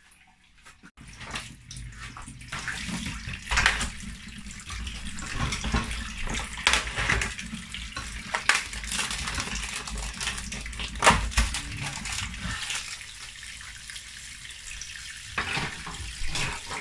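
Kitchen tap running into a stainless steel sink, the water splashing over raw chicken thighs in a plastic tray; the water starts about a second in. Sharp crinkles and knocks come from the plastic tray and film wrap being handled under the stream.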